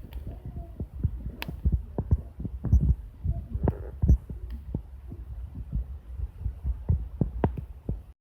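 Wood campfire crackling, with irregular sharp pops and snaps over a low rumble.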